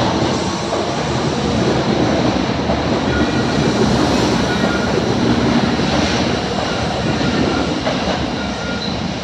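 An Osaka Metro Tanimachi Line 22 series subway train running at the platform: a steady, loud rumble of wheels and running gear.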